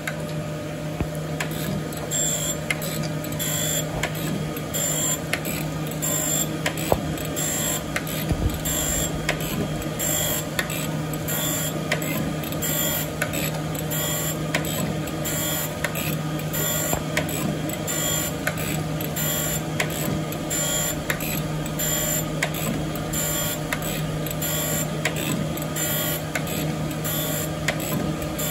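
Jones & Shipman surface grinder running: a steady hum from the wheel spindle under a rhythmic grinding hiss that pulses a little more than once a second as the reciprocating table carries the 304 stainless steel block back and forth under the wheel.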